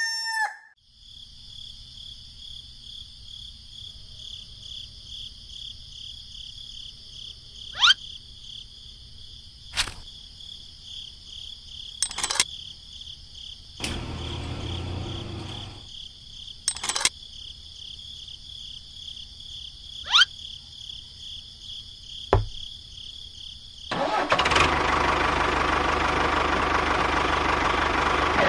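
A small engine or motor running with a steady low hum and a high whine. Sharp knocks come every few seconds, and the sound gets much louder and noisier for the last few seconds.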